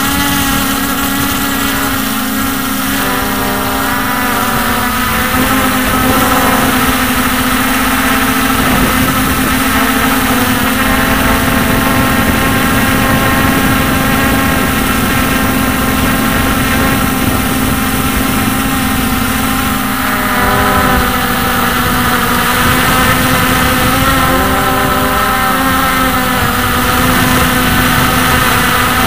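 Hubsan X4 H501S quadcopter's four brushless motors and propellers whining steadily in flight, heard close up from a camera mounted on the drone. Several tones drift up and down in pitch as it manoeuvres.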